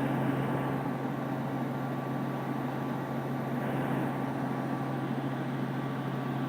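Robinson R44 Raven II helicopter in flight: a steady drone of engine and rotor, with a strong low hum and no change in pitch or level.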